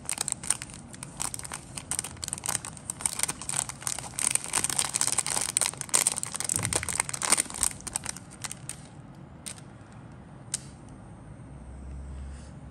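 Thin clear plastic bag crinkling and crackling as hands open it and pull out a sprue of clear plastic parts. The crinkling stops about two-thirds of the way through, followed by a couple of single light clicks.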